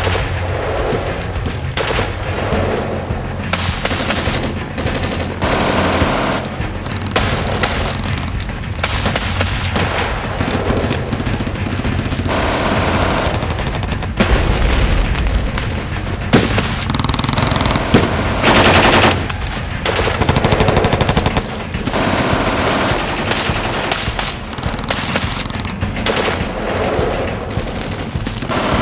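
Sustained firefight: rapid machine-gun bursts mixed with single gunshots, dense and nearly continuous, with music underneath. The loudest burst comes about eighteen seconds in.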